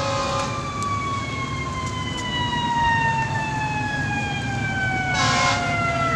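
Fire engine siren wailing, its pitch falling slowly in one long sweep, over a low rumble. A short burst of hiss comes a little after five seconds in.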